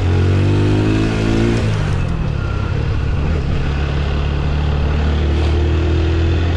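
Motorcycle engine running on the move, its pitch rising over the first second and a half as it pulls, then holding a steady drone. Wind rushes over the microphone throughout.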